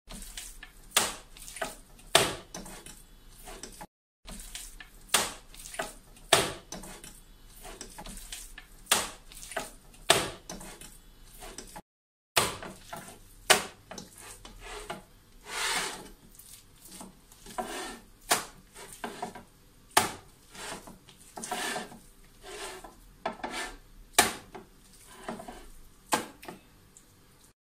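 Hands kneading minced chicken meat on a plate, pressing and beating it: irregular slaps about once a second with soft rubbing between them.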